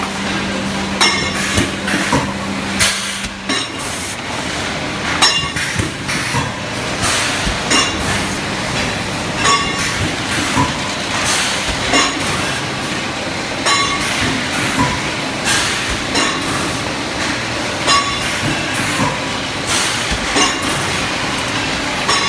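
Plastic cup forming machine running: a steady mechanical din with sharp clacks roughly once a second as it cycles, and a low hum that stops a few seconds in.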